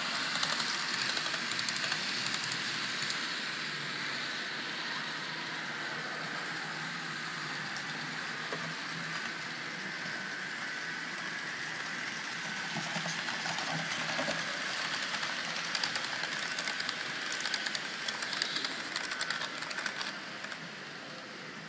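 Model trains running on a layout: a steady whir of small electric motors and wheels rolling on the rails, with quick clicking over rail joints and points in the second half.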